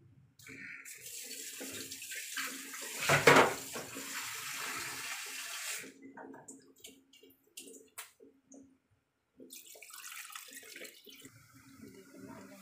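Watery hissing and splashing of liquid in a cooking pan for about five seconds, loudest near the middle, then a few light knocks and, after a short break, softer sloshing as the liquid is stirred with a wooden spoon.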